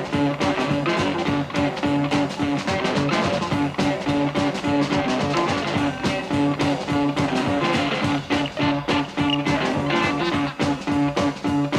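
Live electric blues band playing an instrumental passage: electric guitar over a repeating low riff, with a steady drum beat and no singing.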